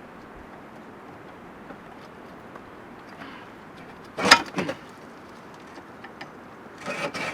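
Hand tools knocking and scraping against the wood stove door while working at a stuck screw: a sharp clank with a brief rattle about four seconds in, and a short scraping rattle near the end.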